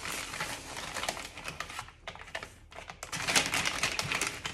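Epsom salt being scooped out of its crinkling plastic bag with a measuring cup and poured into a glass bowl: a dense crackle of rustling plastic and grains that pauses briefly about two seconds in, then resumes.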